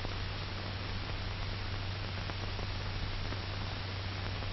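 Steady hiss and low hum of an old 1940s film soundtrack, with nothing else heard.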